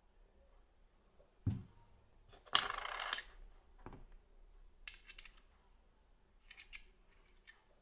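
Small metal and plastic parts of an Aspire Neeko RTA tank being handled: a thump about a second and a half in, a louder scraping rattle lasting about half a second a second later, then a few light clicks as the parts are fitted and screwed together.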